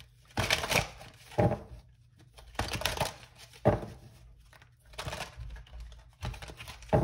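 Tarot cards being shuffled and handled: a string of short papery rustles, about one a second.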